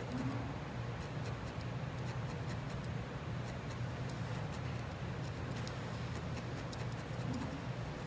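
Barbed felting needle jabbing repeatedly through core wool into a wool felting pad, a steady run of short pokes, over a low steady hum.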